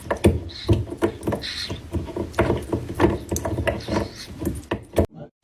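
Rapid, irregular knocks and clatters, broken by a short silence near the end.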